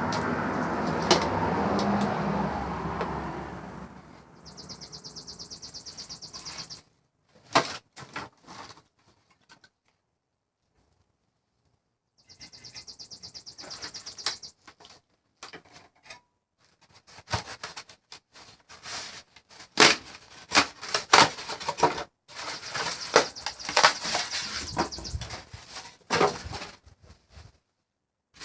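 Dismantling an air conditioner by hand: clicks, knocks and clatter of tools on the unit's metal and plastic parts, with three spells of rapid, even high-pitched ticking from a tool at work. A rushing noise fills the first few seconds, and there is a short dead gap in the middle.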